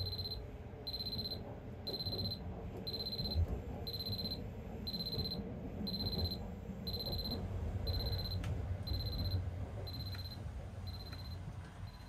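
Digital alarm clock going off at its set time: a high electronic beep repeating about once a second, each beep about half a second long, the last few fainter. A steady low rumble from the moving sleeper train runs underneath.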